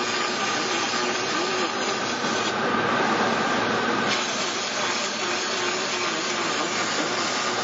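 Robotic welding arm's arc welding steadily, a dense, even noise without breaks.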